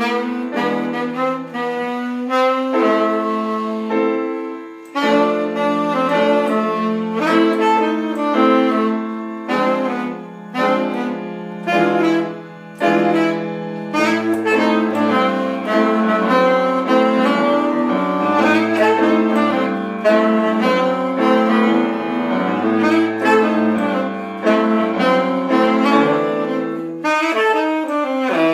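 Saxophone playing a melody of held and moving notes, accompanied by piano with a walking bass line underneath.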